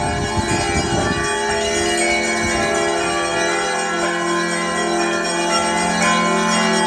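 Russian Orthodox church bells ringing together in a festive peal, a dense mix of many overlapping ringing tones.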